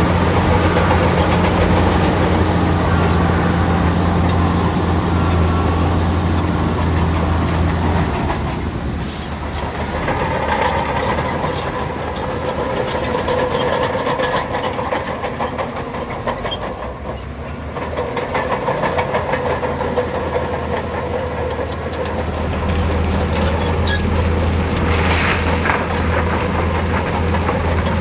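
Heavy diesel earthmoving machinery working: a steady low engine drone that eases off about a third of the way in and comes back strongly near the end, with a few sharp metallic clanks in between.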